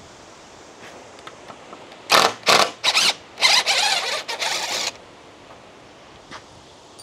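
Ratchet strap being cranked tighter: five or six quick strokes of the ratchet handle, each a burst of rattling clicks, bunched together in the middle. The strap is tensioning to pull a leaning shed upright.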